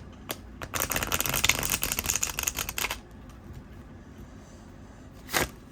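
A deck of new tarot cards being riffle-shuffled: a couple of clicks, then about two seconds of fast fluttering card flicks as the two halves riffle together, and a short rustle of the cards near the end.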